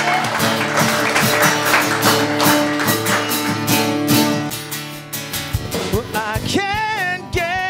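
Live rock band starting a song: strummed acoustic guitar, electric guitar and bass guitar holding chords, then a beat of low thumps joins about five seconds in, with a wavering melody line entering shortly after.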